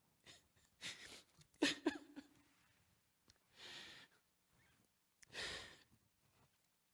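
A man's faint, unsteady sniffing breaths picked up by a pulpit microphone, with a brief choked catch in the voice about a second and a half in, the sound of someone choking up and holding back tears.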